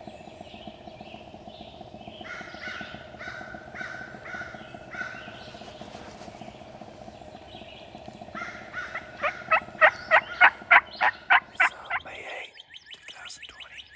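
Turkey yelps: a slow series of calls, then about three seconds from the end a louder, faster run of roughly a dozen yelps, about four a second, which cuts off suddenly. A steady hum sits under the calls.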